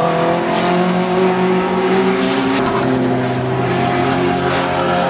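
Several racing saloon cars' engines running at high revs as a pack races past, their overlapping engine notes holding roughly steady with slight rises and falls.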